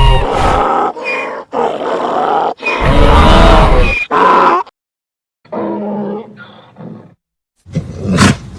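Ivyceros creature vocal sound effects: a string of loud, separate calls, then after a short silence a quieter call, and a brief sharp cry just before the end.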